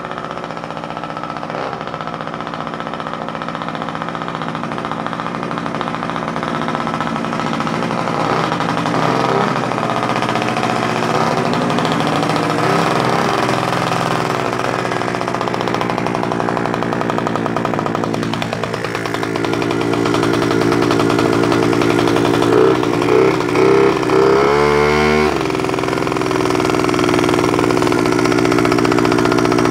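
Puch Magnum X moped's two-stroke single-cylinder engine running just after a cold start. The revs fall about eighteen seconds in, then the throttle is blipped a few times before it settles back to a steady run.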